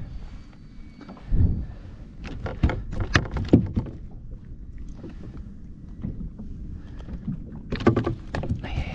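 Knocks, clicks and thumps on the plastic hull of a sit-on-top kayak as a landing net holding a bonefish and a phone are handled on the deck: a low thump about a second and a half in, a run of sharp clicks around three seconds, and another cluster near the end.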